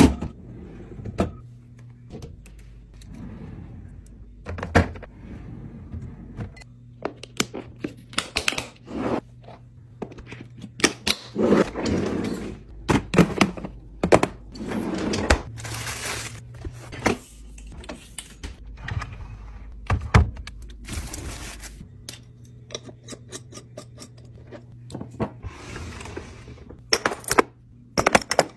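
Plastic food-storage containers and glass spice jars being handled and set down: a string of thunks, knocks and clicks, with a low steady hum underneath.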